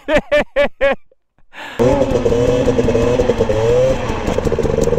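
A quick string of short rising-and-falling pulses, about four a second, for the first second, a brief drop-out, then a dirt bike engine running steadily with slight rises and falls in revs from about two seconds in.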